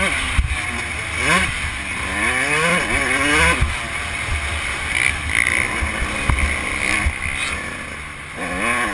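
Dirt bike engine revving hard and dropping back repeatedly as the rider works the throttle and gears around a motocross track, its pitch climbing and falling several times. It eases off briefly near the end, then revs up again.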